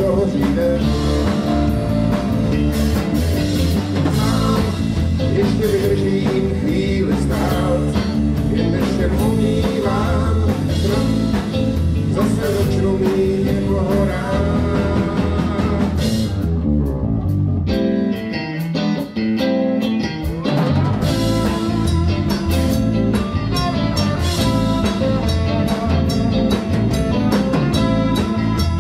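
Live blues-rock band: electric guitars, bass and drum kit with a man singing. About sixteen seconds in, the drums stop and the band thins out for roughly four seconds, then the full band comes back in.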